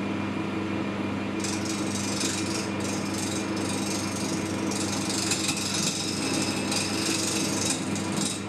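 Small metal lathe running with a steady motor hum while a hand file is held against the spinning workpiece, its scraping hiss coming and going in stretches from about a second and a half in.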